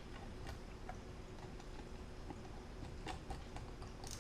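Faint, scattered light clicks and taps of small screws and a precision screwdriver being worked into a MacBook Pro's case, a few irregular ticks a second apart.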